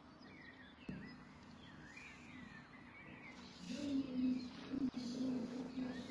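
Small birds chirping in the background. From about halfway through there is also a louder, low, wavering pitched sound.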